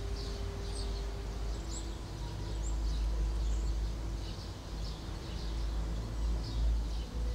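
Soft, long-held notes on a small hand-held wind instrument: one note, then a slightly lower one from a little over a second in, held for several seconds. Birds chirp over steady low outdoor background noise.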